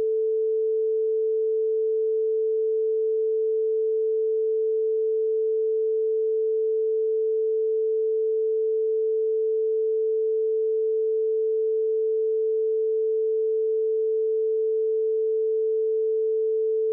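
A steady pure tone, held at one pitch and one level, standing in for a censored passage of a recorded interview.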